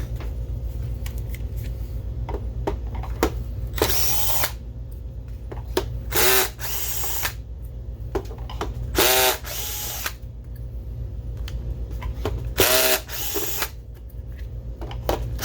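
Power driver spinning out the screws on the bottom of a projector case. There are four short whirring runs of about a second each, with small clicks between them as screws are handled, over a steady low hum.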